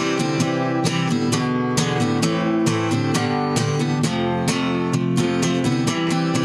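Instrumental music: acoustic guitar strumming chords in a steady rhythm, with no vocals.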